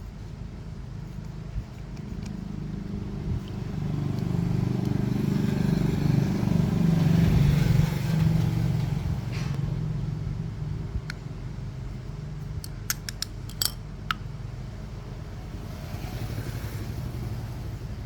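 An engine running, growing louder to a peak about seven seconds in and then easing back; a few sharp clicks come near the end.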